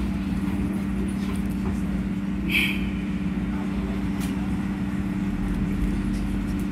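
Inside a Broad Street Line subway car: the steady hum of the car's equipment while it stands at the platform, with one brief high chirp about two and a half seconds in. Low rumble builds from about five seconds in as the train starts to pull out.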